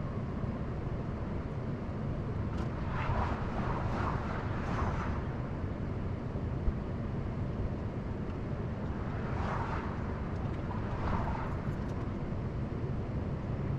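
Steady low outdoor rumble, with vehicle noise swelling and fading twice, each time for a couple of seconds.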